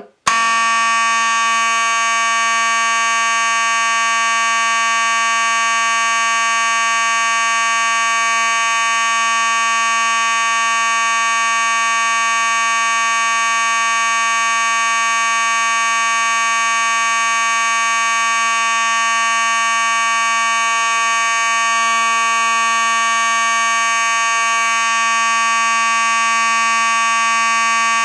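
Simplex 2903-9833 fire alarm horn sounding continuously on one steady, unpulsed tone. It starts abruptly and cuts off abruptly.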